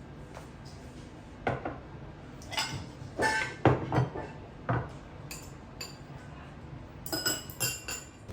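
Dishes clinking and knocking as they are set down, a string of separate clinks with a quick cluster near the end; some leave a brief ring.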